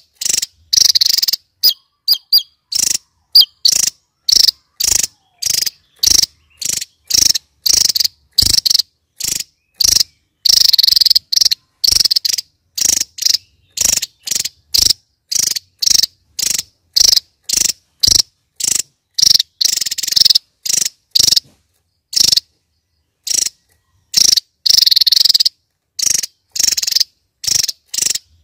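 Javan tesia singing its rapid-fire song: short, high-pitched phrases in quick succession, about two a second, with a few longer runs, separated by gaps of silence.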